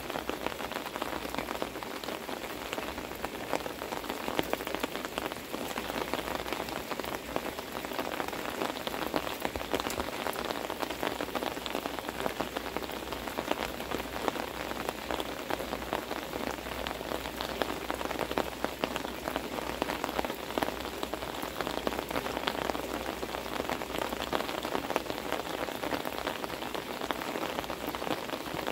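Heavy rain pouring down, a steady dense patter of countless drop hits.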